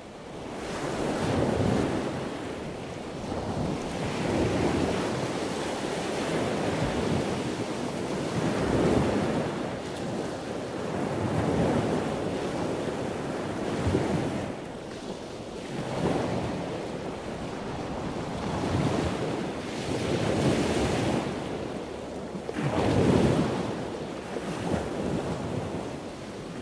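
Ocean surf: waves washing in and drawing back, swelling every two to three seconds.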